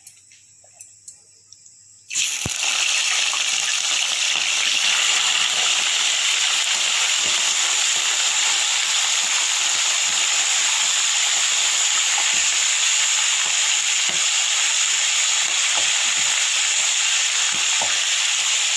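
Raw chicken pieces going into very hot oil in a wok: about two seconds in, a sudden loud, steady sizzle of shallow-frying starts and keeps on, as the pieces are stirred with a wooden spatula.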